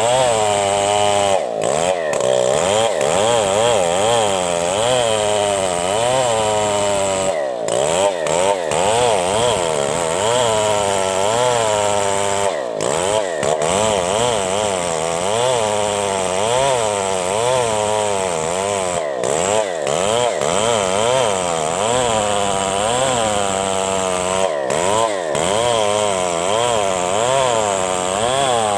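STIHL two-stroke chainsaw running at high revs while ripping lengthwise through a coconut palm log. Its pitch wavers up and down continuously as the chain loads up in the wood, dipping sharply every five seconds or so.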